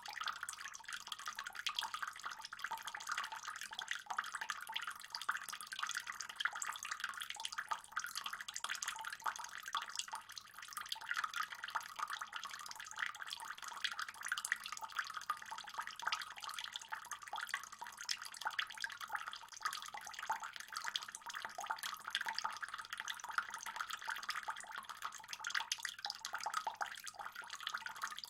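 Pond water trickling and splashing steadily, a dense continuous patter of small drops and splashes.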